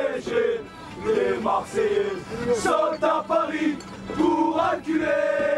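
Marseille football supporters chanting a song together in unison, loud male voices holding long notes between shorter sung phrases.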